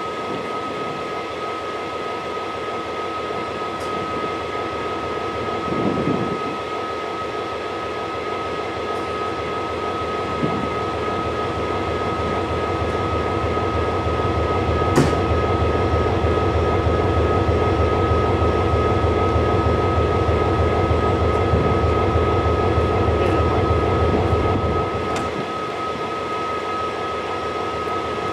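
Mainline diesel-electric locomotive idling at a standstill, close by, with a steady high-pitched whine over the engine drone. About halfway through the low engine rumble swells and holds louder, then drops back shortly before the end; a single sharp click sounds partway through.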